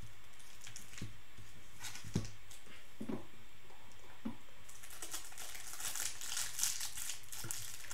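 The plastic wrapper of a Panini Prizm cello pack of trading cards crinkling as it is handled and opened, a dense crackly rustle that starts about halfway through, after a few light taps and knocks on the table.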